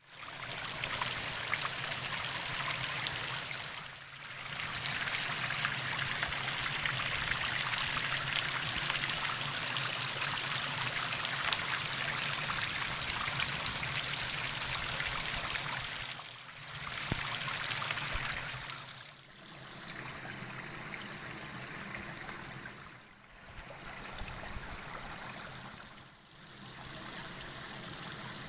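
Spring water running and trickling in a steady rush, the level dipping briefly several times and lower in the last third.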